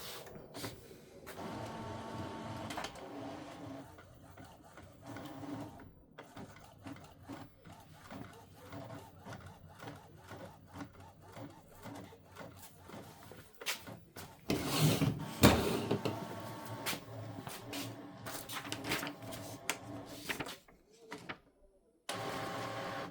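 Epson EcoTank ET-3850 inkjet printer printing a nozzle check pattern: paper feed and printhead carriage motors running, with a long series of quick clicks as the head moves, and a louder mechanical stretch partway through.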